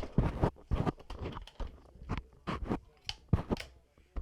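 Irregular clicks and crackling rustles of small hard objects being handled, a quick series of short snaps spread through the whole stretch.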